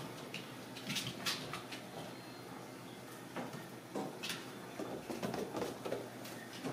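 Ragdoll kittens at play: scattered light scrapes, taps and rustles of small paws scampering over a tile floor and a carpet scratching pad, with a busier patch of rustling about five seconds in.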